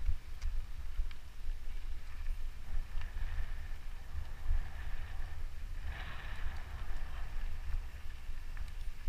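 Wind buffeting the microphone of a camera on a mountain bike riding a dirt trail, with the hiss of tyres on dirt and a few light clicks and rattles from the bike. A short louder hiss comes about six seconds in.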